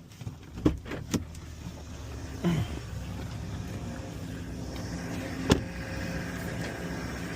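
Heavy-equipment engine running steadily and slowly growing louder, with a few sharp clicks, the loudest about five and a half seconds in.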